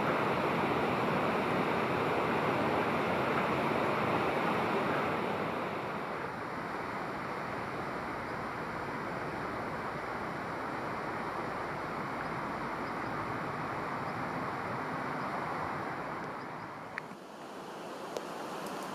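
Steady outdoor rushing noise, louder for the first six seconds, then dropping and changing character about seventeen seconds in, with a few faint clicks near the end.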